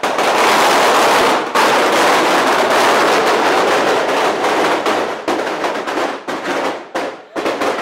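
A long string of firecrackers going off in rapid, almost continuous crackling, loud, with a brief break about a second and a half in and several short gaps in the last couple of seconds.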